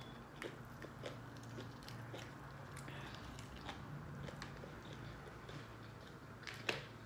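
Close-up chewing with small clicks and crackles as a baked lobster tail's shell is handled and the meat pulled out, with a sharper click near the end.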